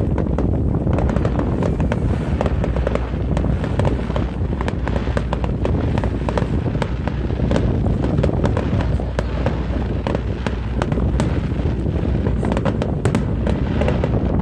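Fireworks display going off continuously: a steady low rumble of booms with many sharp cracks and crackles layered over it.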